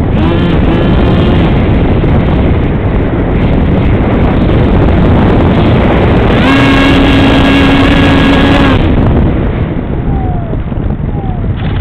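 Easystar electric RC plane in flight, heard from its onboard camera: a loud steady rush of wind over the microphone with the electric motor's whine. The whine rises in pitch about half a second in, holds a strong steady high note for about two seconds in the middle, and dips in short falling tones near the end.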